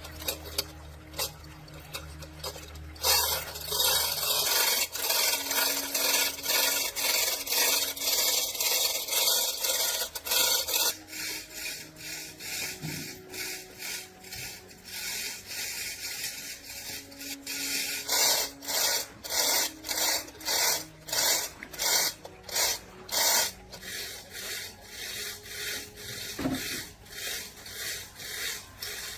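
Rasping back-and-forth strokes of hand abrasion on a surface, about one to two strokes a second. They are densest and loudest from about three seconds in until about eleven, then more spaced out.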